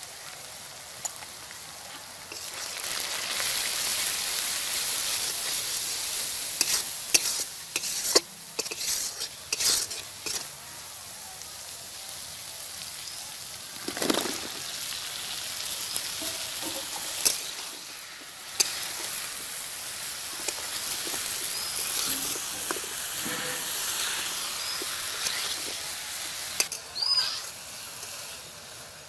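Onions, powdered spices and then chunks of eggplant frying in hot oil in a metal wok, sizzling loudly. A metal spatula knocks and scrapes against the pan as the food is stirred.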